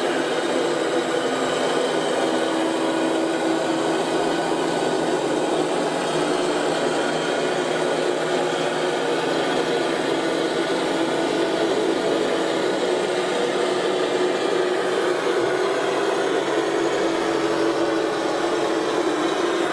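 Small electric motors and hydraulic pump of radio-controlled construction models, running with a steady whir and a constant hum.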